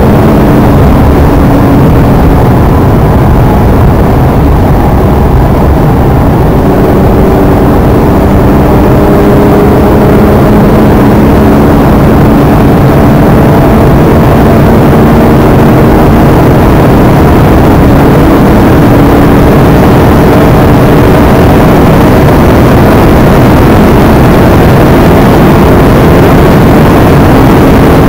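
Lotus Evora's V6 pulling hard in a high gear, heard inside the cabin over heavy wind and road noise. It is loud and steady, and its pitch climbs slowly as the car gains speed at well over 200 km/h.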